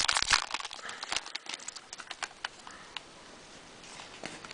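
Crinkling and small clicks of baseball card packs and cards being handled, busiest in the first second and a half and dying away to near quiet by about three seconds in.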